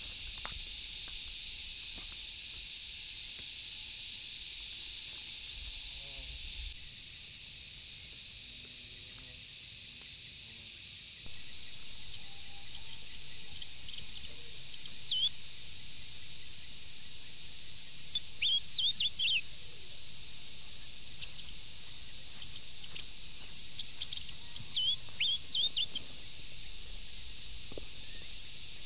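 Open-country ambience: a steady high-pitched hiss, with a bird giving short sharp chirps in small clusters through the second half.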